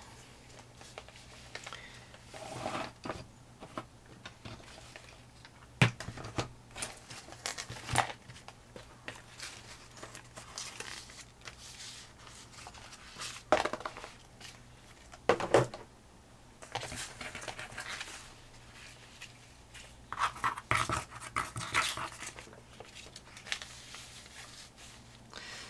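Painted sheets of old book paper being picked up, handled and laid down on a table: intermittent paper rustling and scraping with a few light taps, the sharpest about six, eight and fifteen seconds in.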